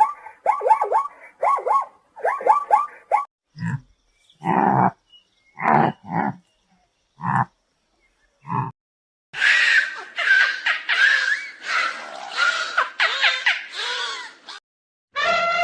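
Animal calls in three parts. First comes rapid repeated bleating, then a few separate low calls spaced a second or so apart, and about nine seconds in a harsher stretch of overlapping squawking calls.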